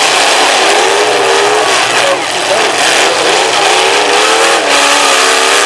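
Several demolition derby cars' engines running and revving at once, their pitches wavering up and down over one another, in a loud continuous din.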